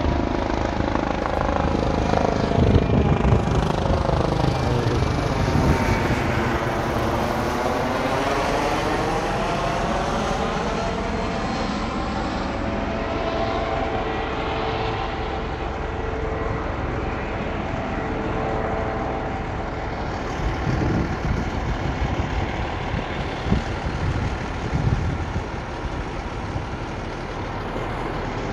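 Coast Guard helicopter flying low overhead, a loud steady rotor and turbine drone whose tone sweeps down and back up as it passes over. It then settles into a steadier drone as it moves away.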